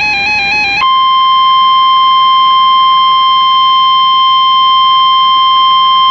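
The end of an EAS SAME digital header, a warbling data burst that cuts off under a second in, followed by the NOAA Weather Radio 1050 Hz warning alarm tone: one steady, loud, single-pitched tone that signals an alert message is about to be read.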